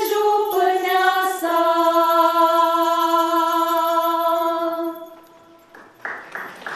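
Women's choir singing a Romanian carol a cappella, closing on one long held chord that fades out about five seconds in. After a short pause, a burst of noise starts near the end.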